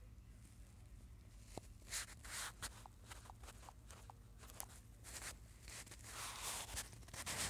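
Faint rustling and soft tapping from a phone being handled while a finger draws on its touchscreen, starting about two seconds in and coming in short irregular bursts, over a low steady hum.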